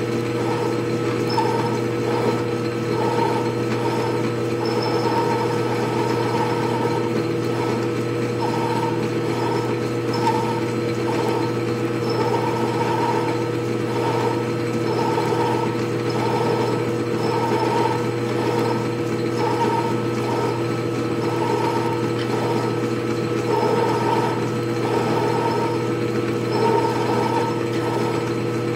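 Atlas 618 metal lathe running steadily, with a hum of steady tones from its drive. A ball-turning attachment is being swung by hand, and its tool bit cuts into the spinning metal in short bursts that come and go every second or so.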